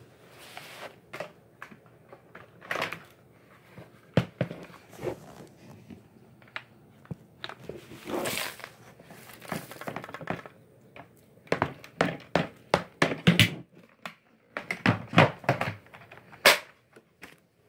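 Irregular knocks, clicks and thunks of things being handled, some single and some in quick clusters, with a brief rushing scrape about a third of the way in and a sharp knock near the end.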